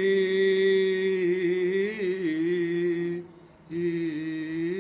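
A man singing unaccompanied, without words, in a voice he calls hoarse. He holds one long steady note for about three seconds, breaks off briefly, then holds a second long note that wavers down and back near the end.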